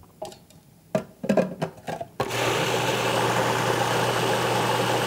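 A few light knocks and clicks, then about two seconds in a countertop food processor switches on and runs steadily, puréeing a liquid soup.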